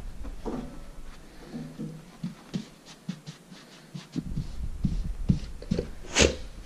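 Yellow Labrador panting and snuffling around a rubber toy held in its mouth, with short scattered breath noises and one louder, sharp burst about six seconds in.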